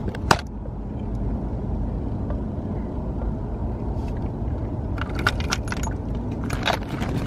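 Wind rumbling on the microphone, with a sharp click near the start and a few clicks and light rattles around five to seven seconds in.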